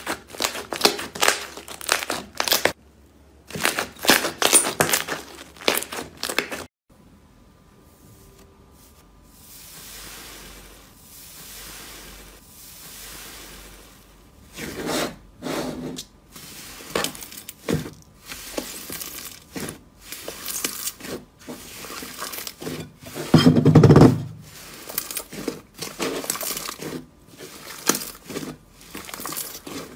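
Close-miked slime being squeezed and pressed, with dense crackling and crunching. It cuts off suddenly about seven seconds in, is softer for several seconds, then picks up again with irregular crackles and one heavy thud a little past the middle.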